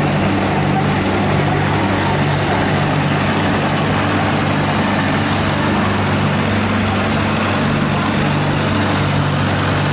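A large vehicle engine idling steadily, a deep, even hum.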